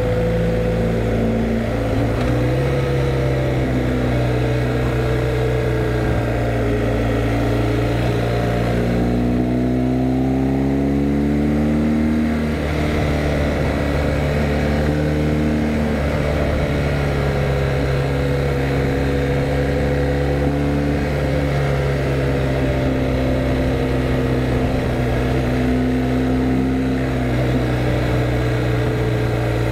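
BMW R1250GS Adventure's boxer-twin engine running on the move, its note climbing under acceleration from about nine seconds in and dropping back at a gear change about twelve seconds in, with a steady wind and road rush underneath.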